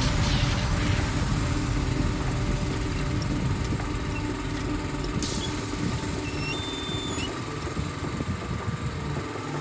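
Engine running steadily to power the hydraulic crane of an Avesta ATV timber trailer while the grapple lifts a log.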